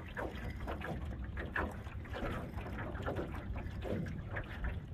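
Wind rumbling on the microphone, with soft irregular clicks from a spinning reel being cranked against a small hooked fish.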